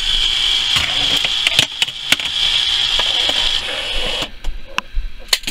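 Arcade claw machine running: a steady mechanical whir as the claw moves for about three and a half seconds, then stops, with several sharp clicks along the way and near the end.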